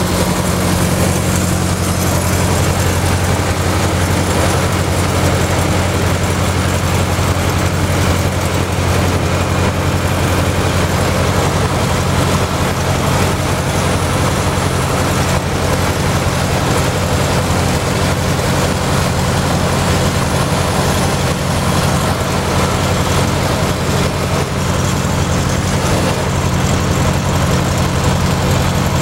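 Heavy engine idling at a steady speed, a constant low drone that never changes pitch.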